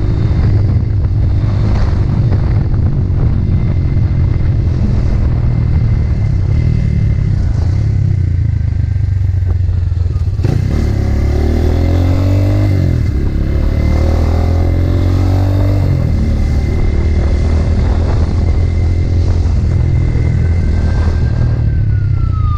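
Motorcycle engine running steadily under way, with road noise. In the middle of the clip the engine pitch rises and falls.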